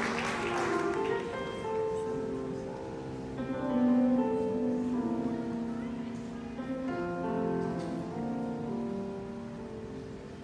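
Symphony orchestra playing the slow, soft introduction to a song in held, layered notes, while the last applause fades in the first second.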